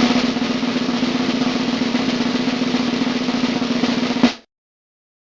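Drum roll sound effect: a rapid snare roll held for about four seconds, ending on a single sharp hit and then cutting off.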